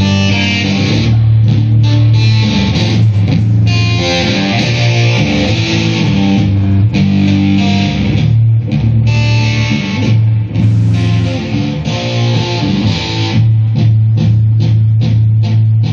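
Rock band playing live: an electric guitar strummed through its amplifier over a bass guitar's held low notes. Near the end the guitar changes to short, choppy strokes.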